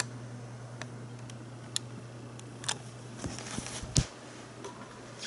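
Steady low electrical hum with scattered light clicks, a cluster of them past the middle, and one sharper click with a low thump about four seconds in.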